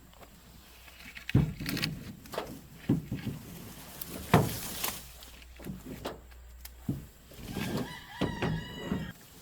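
Several loose knocks and thumps, then near the end a rooster crowing once, a drawn-out call of about a second and a half.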